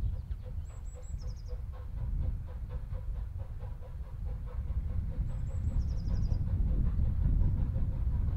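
Distant narrow-gauge steam locomotive working along the line, its exhaust beating at about four beats a second over a low rumble. A small bird sings a short, high phrase twice, about a second in and again about five seconds later.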